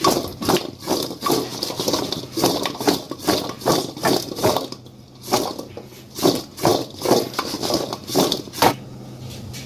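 Raw potato pieces, coated in dry seasoning, being tossed and mixed in a bowl: a run of irregular knocks and rattles, a few each second, with a short pause about halfway.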